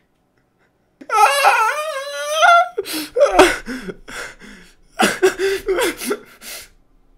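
A young man crying and laughing at once. First comes a long wavering wail, about a second in, then two runs of short, choppy sob-laughs.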